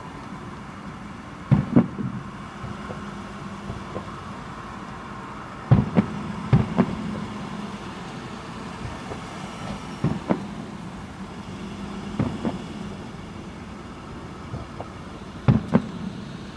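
Aerial fireworks shells bursting: a series of sharp booms a few seconds apart, some in quick pairs, over a steady background noise.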